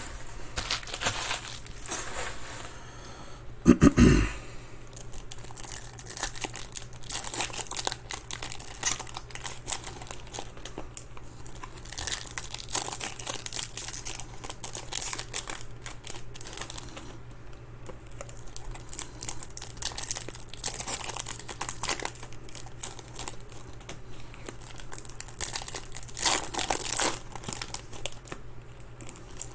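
Foil wrappers of trading-card packs crinkling as they are torn open and handled, with one loud thump about four seconds in.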